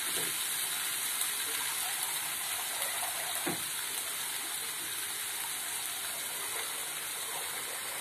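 Boiled chickpeas and spice masala sizzling steadily in hot oil in a kadai.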